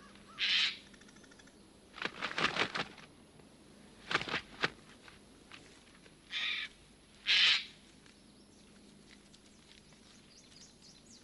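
A bird of prey giving short, harsh cries and flapping its wings: one cry near the start, two bouts of wing-beats at about two and four seconds in, then two more cries close together around six and seven seconds in.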